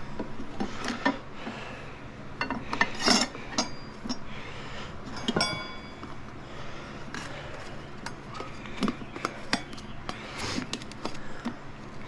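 Metal tire levers clinking, knocking and scraping against a motorcycle wheel rim while a tire is pried off by hand. The sounds are irregular, with one ringing metallic clink about five seconds in.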